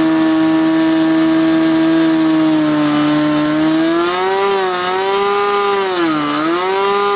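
SIG Kadet LT-40 model airplane's small two-stroke glow engine running at high revs during break-in. Its note holds steady, sags slightly, then from about halfway wavers up and down, with a sharp dip and quick recovery near the end.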